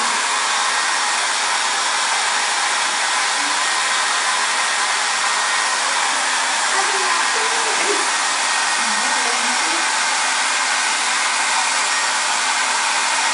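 Hand-held hair dryer blowing steadily, an even, unchanging rush of air and motor noise.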